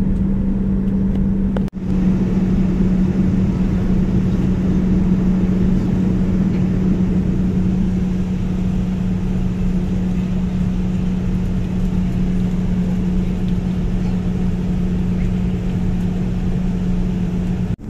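Steady cabin noise aboard a Boeing 787-9 airliner: an even rush with a constant low hum, which drops out for a moment about two seconds in.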